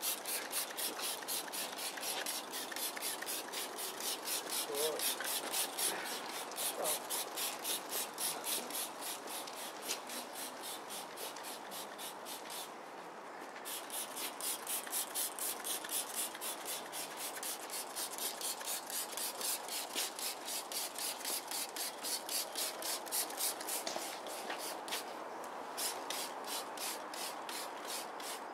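Pink trigger spray bottle of Muc-Off motorcycle cleaner being pumped over and over, each squeeze a short hiss of spray, several a second in a steady run. It pauses briefly about halfway through.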